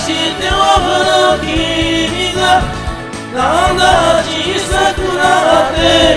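Group karaoke: several voices singing a J-pop song together through microphones over a karaoke backing track.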